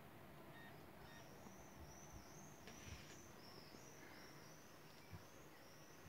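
Near silence: faint room tone with a faint run of high, arching chirps from about a second in, and two short faint beeps about half a second apart near the start.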